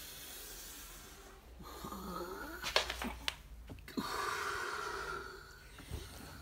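Dogo Argentino puppy breathing noisily in long huffs while a hand rubs and handles it, with a few sharp clicks between the huffs a little before halfway.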